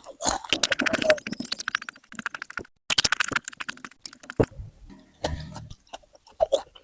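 Close-up crunchy chewing of raw vegetables: rapid runs of crisp crackling clicks, most continuous in the first four seconds, then sparser chews.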